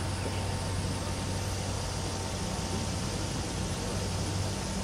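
A steady low hum under an even hiss, with no change in pitch or level.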